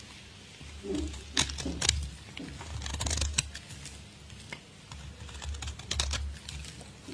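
A flat metal blade scraping and cutting into a hard blue block, making crisp crackling scrapes in three short bouts, about a second in, around three seconds and around six seconds, over a low rumble.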